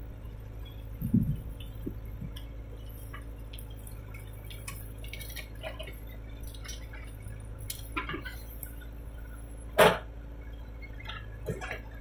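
JCB 3DX backhoe loader's diesel engine running steadily while it works, with scattered clicks and knocks, a low thud about a second in and a sharp loud clank near the end.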